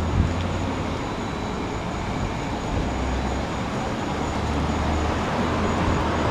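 Steady road traffic noise from cars on a town street, a low rumble that grows a little louder toward the end as a vehicle draws near.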